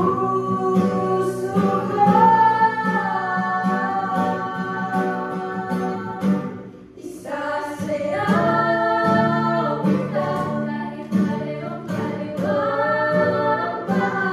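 Young women singing a Tagalog song together to strummed acoustic guitars and a ukulele, with a brief break in the singing about halfway through.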